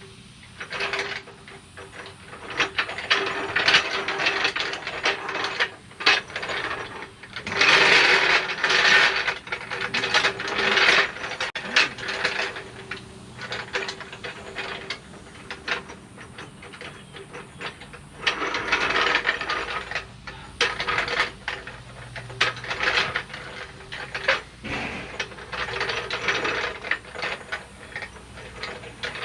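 Hand ratchet wrench clicking in repeated bursts of a few seconds as truck lug nuts are tightened and checked.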